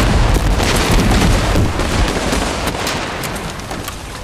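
Battle sound effects: heavy explosions with a deep rumbling boom, overlaid by dense gunfire cracks, the rumble slowly dying away.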